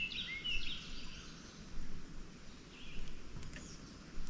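Birds chirping: a quick run of short, rising chirps at the start and a single chirp about three seconds in, over a faint low background rumble.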